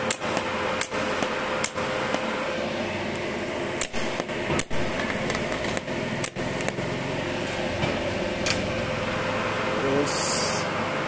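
Inverter TIG welder under a test weld: a steady hum with a constant whine, and sharp crackles roughly once a second from the TIG arc on scrap steel that stop about six seconds in. A short hiss near the end.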